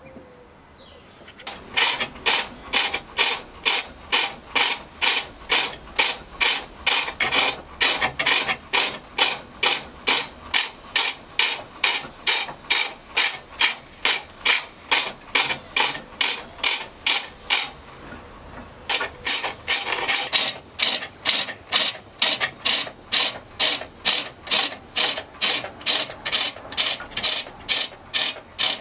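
Hand turning tool cutting a wooden bowl on a foot-powered pole lathe: a rhythmic cutting rasp, a little over two strokes a second, in time with the back-and-forth spin of the treadle-driven mandrel. The strokes begin about a second and a half in and pause briefly about two-thirds of the way through.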